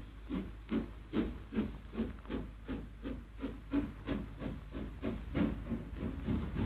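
LMS Princess Royal class steam locomotive No. 6207 pulling away, its exhaust chuffing in an even beat of about three puffs a second that quickens slightly as it gathers speed, over a steady low rumble and hiss of steam.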